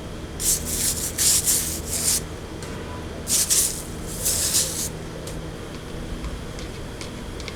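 Four rough abrasive rubbing strokes against a surface, in two pairs, over a faint steady low hum.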